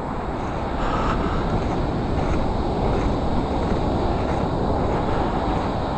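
Ocean surf and wind at the shore: a steady rushing noise with a deep rumble, a little louder from about a second in.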